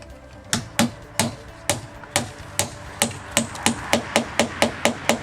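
Hammer driving a 2 1/4-inch galvanized nail to fasten a vinyl window: a quick series of about twenty sharp strikes, roughly four a second.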